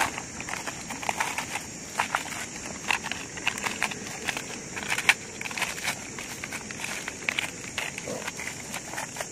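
Irregular crackling and rustling from hands working a papery wasp nest, its leaves and the plastic protective suit, with a steady high hiss underneath.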